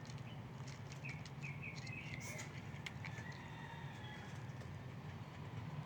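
A bird chirping a quick run of five or six short notes about a second in, over a steady low hum.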